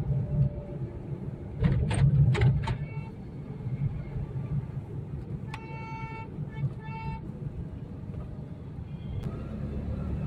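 Steady road and engine rumble of a car driving on a highway, heard from inside the cabin. A few sharp clicks come about two seconds in, and a vehicle horn honks in a few short blasts around six to seven seconds in.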